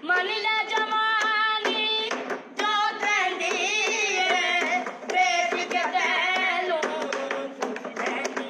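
A boy singing a held, ornamented melody, accompanied by hands drumming a tabla-style rhythm on a wooden school desk, short sharp taps under the voice.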